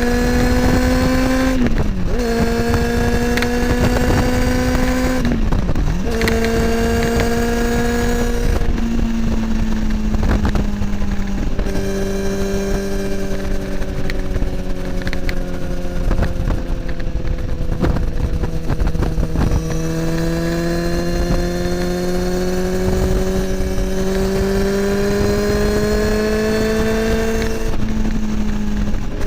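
Kawasaki ZX10R inline-four running through an Akrapovic slip-on exhaust while riding. The engine note climbs gently and briefly dips three times in the first several seconds. It then settles into a long, slowly falling and rising pitch, with a step up near the end.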